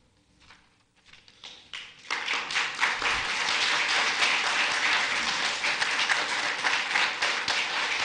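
Audience applauding: a few scattered claps about a second in, building quickly into full, steady applause from about two seconds in.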